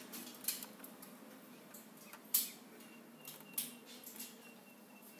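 A few faint, sharp clicks at irregular intervals from a Pioneer car stereo's tuning button being pressed as the radio steps up through the FM band.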